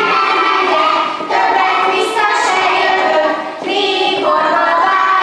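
A group of young children singing a song together in unison while dancing a ring game, sung phrases broken by brief pauses about a second in and again near the four-second mark.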